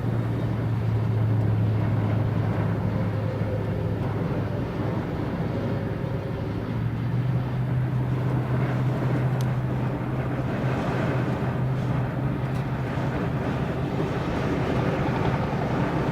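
Strong wind buffeting the microphone: a loud, constant rush. Under it a steady low hum fades out about four seconds in and comes back a few seconds later.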